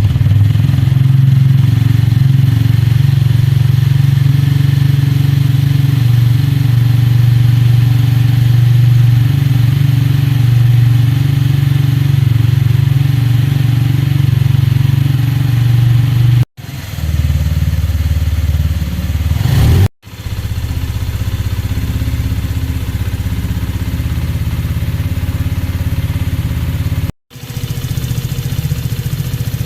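Benelli Keeway SR 125 single-cylinder 125cc motorcycle engine running steadily at idle just after starting. The sound breaks off abruptly three times, and its tone and loudness shift after each break.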